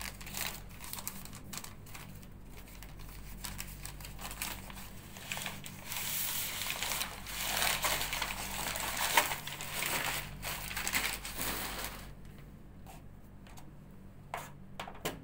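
Paper-and-plastic wrappers of sterile gauze and dressing packets crinkling and rustling as they are handled and pulled open. The crinkling is thickest from about six to twelve seconds in, then dies down to a few faint clicks.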